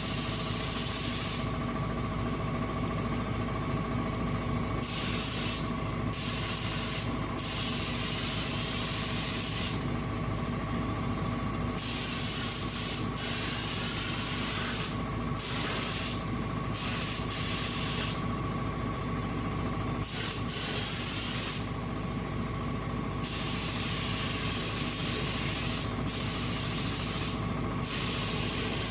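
Air spray gun applying primer to the body panels, its hiss triggered on and off in irregular bursts of one to three seconds, over a steady machine hum.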